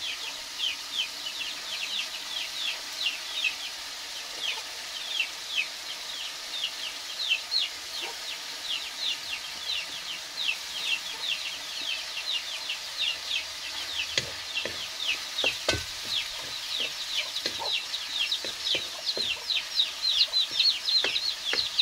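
Young poultry peeping over and over in a rapid string of short, falling high chirps, two or three a second. A wooden spatula knocks against a wok a few times in the second half.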